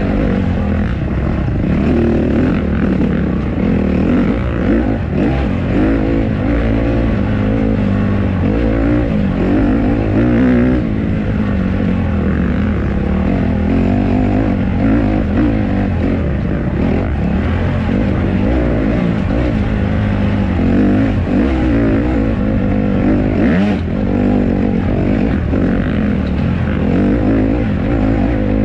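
Honda CRF150RB dirt bike's four-stroke single-cylinder engine running under load on a trail ride, its pitch rising and falling again and again with the throttle.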